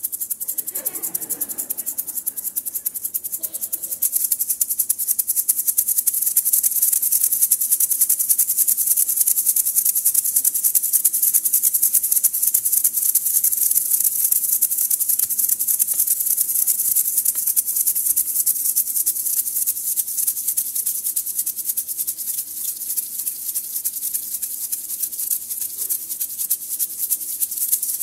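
Percussion rattling fast and continuously in an even, shaker-like rhythm, with a bright, hissy sound.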